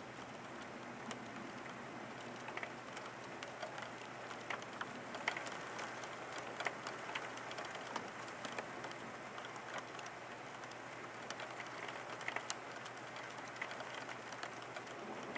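Steady rain falling in a thunderstorm, an even hiss with many sharp drops ticking close by.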